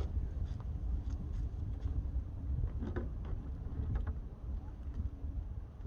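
Wind buffeting the microphone outdoors: an unsteady low rumble, with a few faint ticks.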